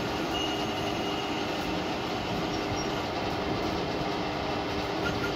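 Metal lathe running under cut: a tool bit turning a spinning metal workpiece, with a steady machine hum and a thin high whine from the cut starting about half a second in.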